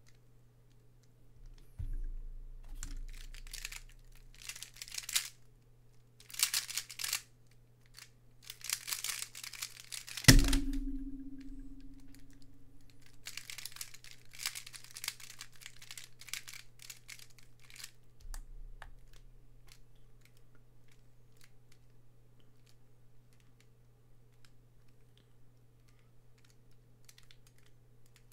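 A Square-1 puzzle being twisted and sliced fast in a speedsolve, with bursts of plastic clacking and scraping. About ten seconds in comes a sharp slap on the Speed Stacks timer pads that stops the solve; it is the loudest sound and rings briefly. After that come more bursts of turning and then faint clicks as the puzzle is scrambled again, over a steady low hum.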